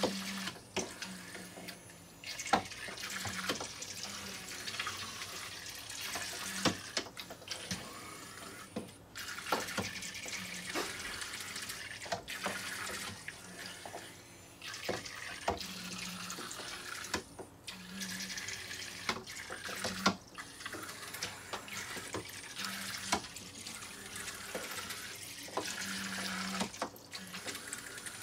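Zuru Micro Boats toy speedboats running on a water-filled plastic track, their small propellers churning and splashing the water steadily, with frequent sharp clicks and knocks.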